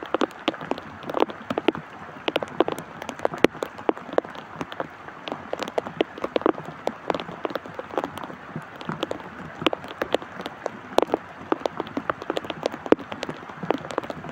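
Rain falling: a steady hiss with many sharp, irregular drop hits close by.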